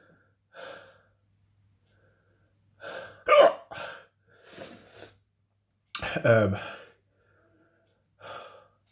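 A man hiccupping repeatedly, sharp voiced hics a few seconds apart, the loudest about three and six seconds in, with fainter breaths between. The hiccups are brought on by the heat of a superhot chili pepper he has just eaten.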